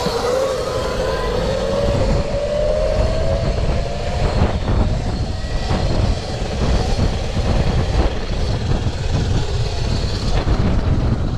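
Electric dirt bike riding, its motor whine slowly rising in pitch as it gathers speed, over a heavy rumble of wind on the microphone.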